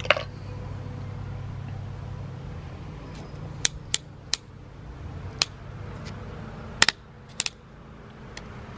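SRAM Grip Shift twist shifter being rotated by hand through its gears, its indexing detents giving a series of sharp clicks, some in quick pairs, from about three and a half seconds in, after a single click at the start. The clicking spring has just been cleaned and lubricated, and the shifter is indexing through the gears again instead of jamming.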